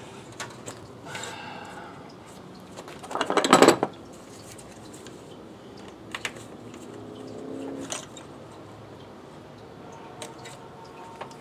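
Rubber upper radiator hose being pushed and worked onto the thermostat housing outlet: scuffing and rubbing with scattered light clicks, and one louder scrape about three seconds in.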